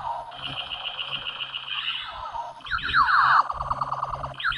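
Battery-operated toy gun with a spinning light-up disc playing its electronic sound effects: a warbling, pulsing tone, then from about three seconds in, rapid runs of falling laser zaps.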